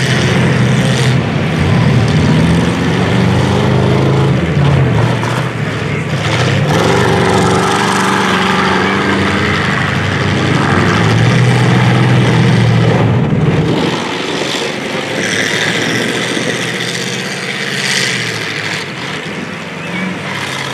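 Several full-size demolition derby cars' engines revving hard and running loud as the cars ram and push each other, with occasional knocks of car bodies hitting. The low engine roar eases off about two-thirds of the way through.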